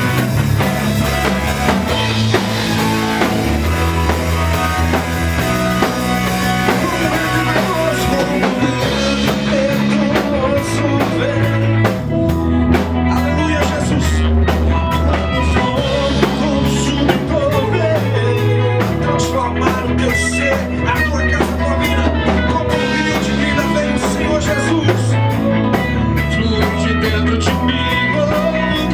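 A live band playing an upbeat song on drum kit, bass and electric guitar. The cymbals are thick for the first third, then drop back to a steady, regular high beat.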